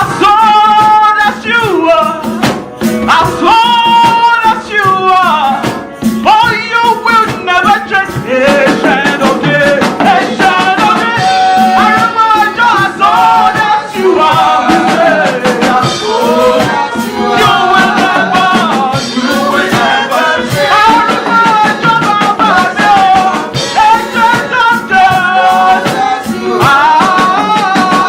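Worship music: voices singing a melody over a band, with a steady, busy percussion beat.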